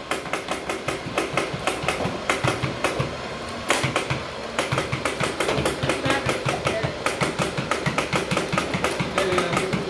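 Battery-powered automatic Nerf Rival blaster firing foam balls in rapid fire: a motor running with quick clacks, several a second, and a short pause a little over three seconds in.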